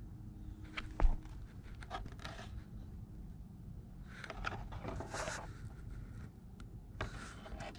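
Handling noise: scrapes and rustles, with one sharp knock about a second in, as the crashed RC car and its plastic body are handled close to the microphone.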